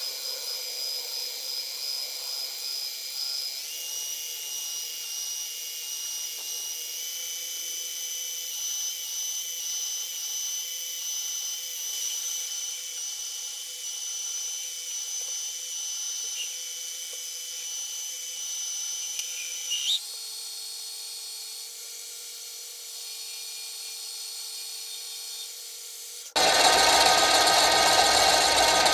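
Mini metal lathe's motor running with a steady high whine that steps up in pitch several times as the speed changes. About 26 seconds in it gives way abruptly to a much louder, rougher machining noise.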